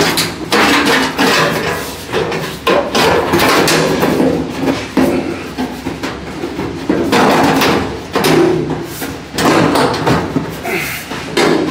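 A welded-in steel sheet-metal panel being worked into a tight spot in a car's body, clanking and scraping against the surrounding metal as it is pushed and bent into place: a string of irregular metallic clanks and rattles.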